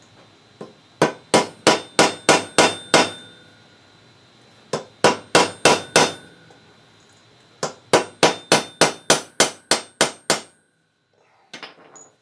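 Hammer blows on steel, staking the end of the leg vise's bolt so it locks in place. There are three quick runs of ringing strikes, about three a second, with short pauses between, and a few light metal clinks near the end.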